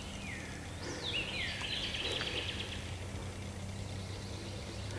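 Wild songbird calls: a couple of high falling whistled notes, then about a second in a quick run of descending chirps, over a steady low hum and outdoor hiss.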